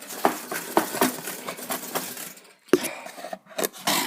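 A new toaster being jiggled and shaken out of its cardboard box: packaging rustling with a quick run of small knocks and rattles, then a few sharper knocks near the end.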